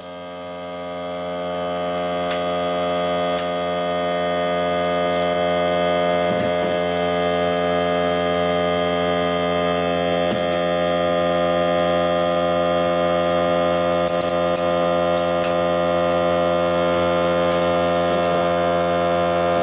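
Greenworks 40-volt cordless compressor's motor running steadily, a hum that builds in loudness over the first few seconds and then holds level as the compressor refills with air between rounds of nailing.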